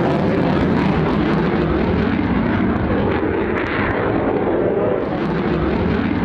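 Eurofighter Typhoon's twin turbofan jet engines, loud and continuous during a display pass, with a pitch that wavers up and down.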